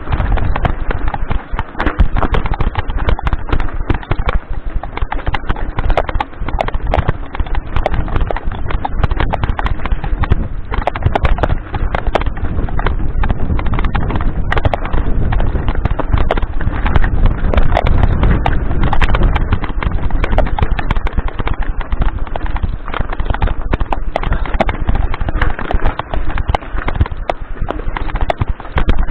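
Mountain bike clattering over a loose, rocky trail: a dense, irregular run of knocks and rattles from the bike jolting on the stones, with a low rumble underneath.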